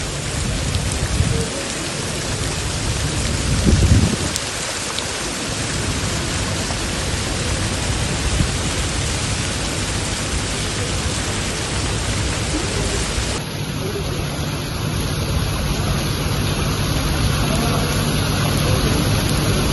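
Heavy rain pouring steadily onto paving and a road, an even hiss. About four seconds in there is a short low rumble, the loudest moment.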